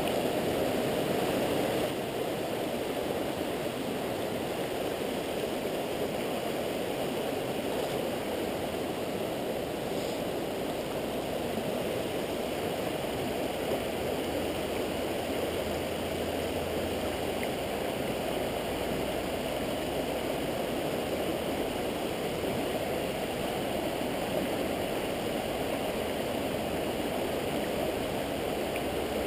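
Steady rush of a clear mountain river running over rocks and shallow riffles, a little louder for the first couple of seconds.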